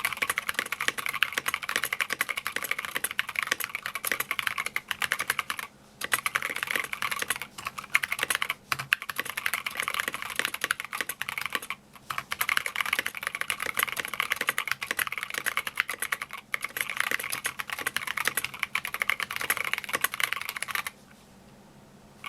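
Fast typing on a mechanical keyboard with 65 g tactile Zealios switches and SA-profile doubleshot keycaps: a dense, rapid clatter of keystrokes at roughly 105 words per minute, with a few brief pauses. The typing stops about 21 seconds in, leaving faint background static.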